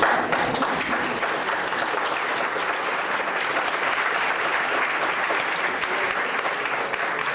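Small audience clapping, a steady, even patter of many hands.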